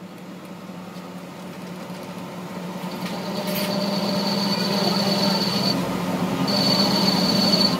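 Metal lathe running with a steady low hum while a turning tool faces the end of a spinning CV axle shaft. About three seconds in, the cut sets up a steady high whine, which breaks off for a moment around six seconds and then comes back.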